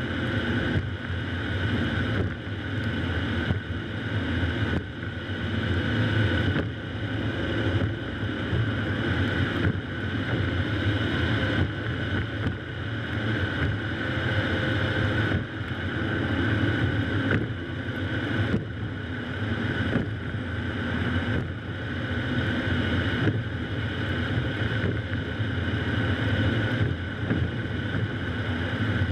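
Car driving along a road, picked up by a camera mounted low on the outside of the car: a steady rumble of tyre and road noise, with wind buffeting the microphone.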